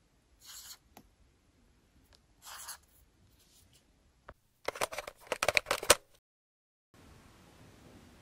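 Yellow highlighter drawn across notebook paper in two short strokes, about half a second and two and a half seconds in. About four and a half seconds in comes a louder quick run of sharp clicks and taps, lasting about a second and a half.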